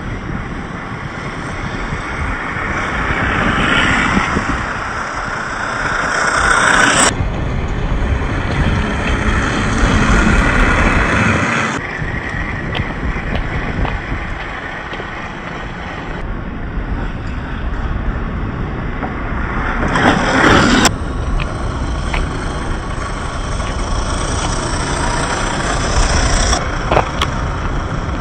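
1/10-scale RC crawler trucks driving off-road: their brushed 540 electric motors and geared drivetrains running under load, with tyre and ground noise. The sound changes abruptly several times, at cuts between clips.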